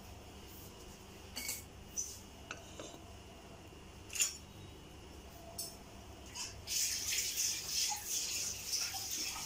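Empty aluminium pressure cooker on a lit gas stove: a few light taps and clinks against the pot, then a hiss lasting about three seconds near the end.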